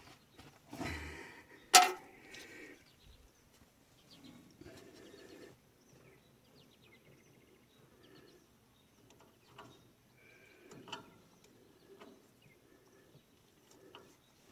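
Hand work on the haybine's crimper drive: scattered clicks, knocks and scrapes of tools and parts being handled, with one loud sharp click about two seconds in and another about eleven seconds in.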